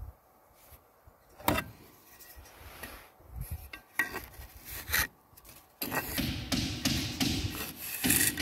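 Steel mason's trowel working wet mortar on clay roof ridge tiles: a few sharp knocks against the tile, then continuous scraping as the blade smooths the mortar joint from about two-thirds of the way in.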